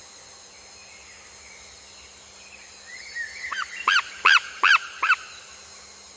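A bird calling a quick series of five short, arched notes, about two a second, over a steady high insect hum.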